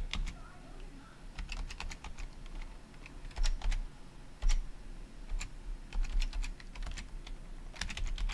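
Computer keyboard being typed on, keys clicking in short bursts with brief pauses between them.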